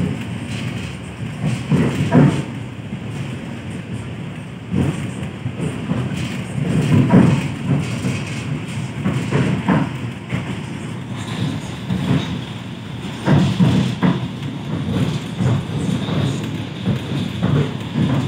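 ED4M electric multiple unit running between stops, heard from inside the carriage: a steady low rumble broken by irregular knocks of the wheels over the rail joints, a few seconds apart.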